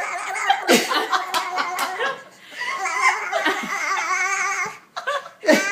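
Several people laughing together, a baby's laughter among them. The laughter breaks off briefly about two seconds in and again shortly before the end.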